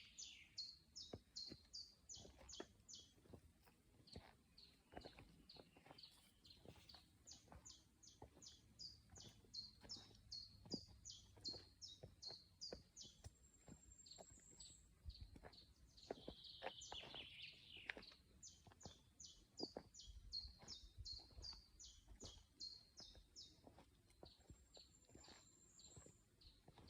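Faint forest birdsong: a small bird repeating a rapid series of high, clipped notes, about four a second, in runs lasting several seconds, with a louder, lower call about two-thirds of the way through.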